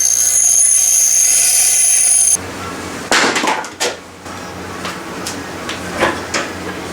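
A power grinder grinding down a steel pin punch: a loud, steady, high-pitched whine with a hiss that cuts off suddenly a little over two seconds in. After it come several sharp metallic clicks and knocks as the tool and punch are handled.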